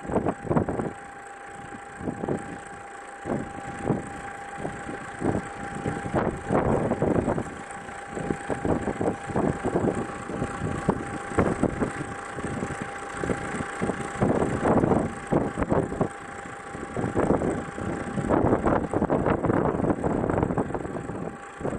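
Blizzard wind buffeting the microphone, rising and falling in irregular gusts.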